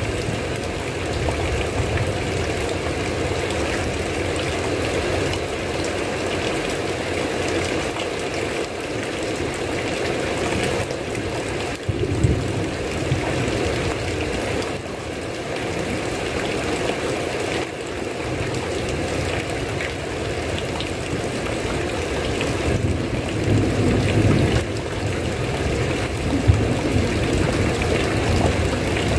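Steady heavy rain, an even wash of noise, with short low rumbles about twelve seconds in and again near twenty-four seconds.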